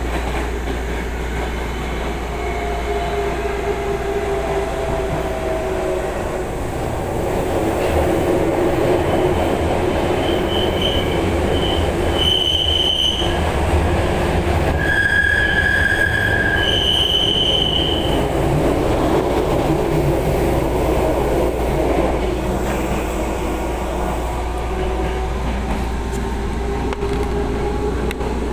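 Inside an Osaka Metro 23 series subway car under way: a steady rumble of wheels on the rails, with the traction motors whining and shifting in pitch. From about ten to eighteen seconds in, high-pitched squeals come and go, typical of wheels squealing through a curve.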